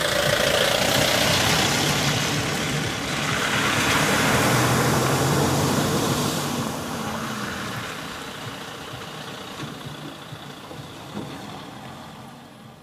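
A motor vehicle's engine running, with a broad hiss over it. The sound swells twice in the first half, then slowly fades away.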